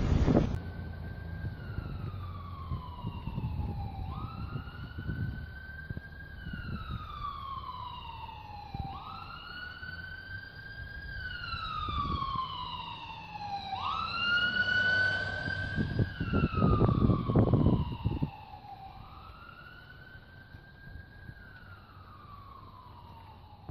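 Emergency vehicle siren in a wail pattern, each cycle rising quickly and then sliding slowly down in pitch, repeating about every four to five seconds. It grows louder toward the middle, with a low rumble at its loudest, then fades.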